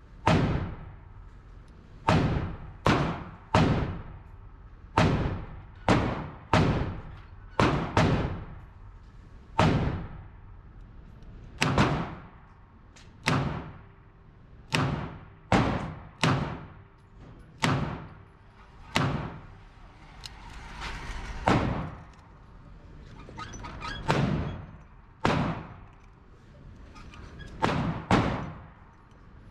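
Handgun shots echoing in an indoor shooting range: about two dozen sharp reports at uneven intervals, some in quick pairs, each followed by a short reverberant tail.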